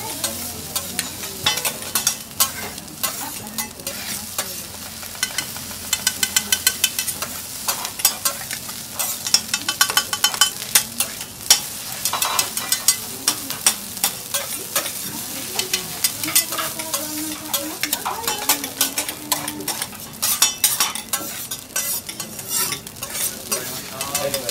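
Fried rice sizzling on a teppanyaki steel griddle while two metal spatulas rapidly chop, scrape and clack against the hot plate, several strokes a second.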